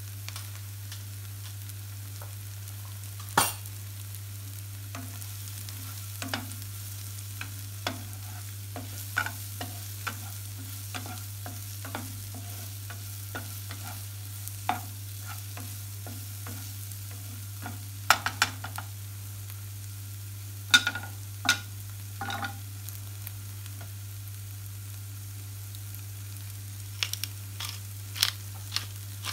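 Chopped onion and tomato frying in a black metal frying pan with a low sizzle, while a spatula scrapes and taps against the pan now and then. A steady low hum runs underneath.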